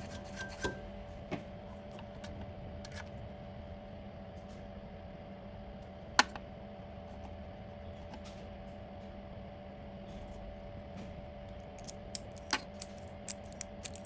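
Faint steady machine hum with a few light clicks and taps scattered through it, the sharpest click about six seconds in and a small cluster near the end.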